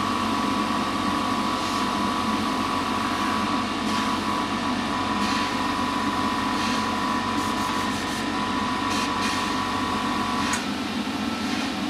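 Airbrush compressor running steadily, with air hissing through a gravity-feed airbrush as it sprays pre-shading. The steady hum's tone drops out about ten and a half seconds in.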